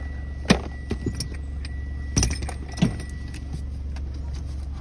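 A few sharp clicks and knocks, the loudest a little past two seconds in, over a steady low hum.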